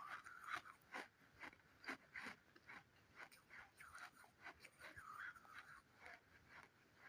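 Faint crunching of dry sand clay: a string of irregular small crackles and crumbles, several a second.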